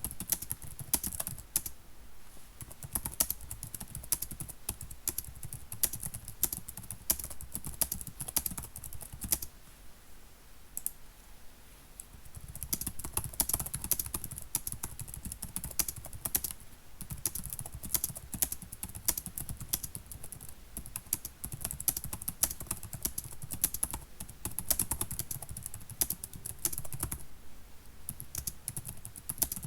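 Typing on a computer keyboard: fast, irregular key clicks in runs, thinning out briefly about a third of the way through before picking up again.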